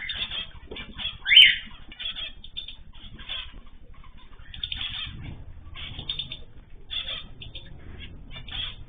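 Small ornamental cage birds chirping and calling continuously, with wings fluttering; one louder call stands out about one and a half seconds in.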